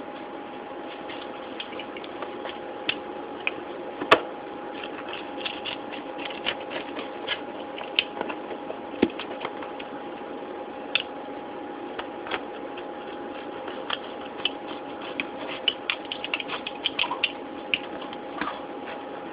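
Pizza cutter wheel rolling through a baked crust, giving irregular crisp crackles and clicks that come thicker in the second half, with one sharper knock about four seconds in. A steady hum runs underneath.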